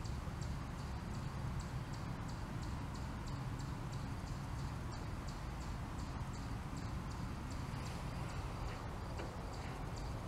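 Faint, high-pitched ticking repeating evenly about three times a second, over a steady low rumble.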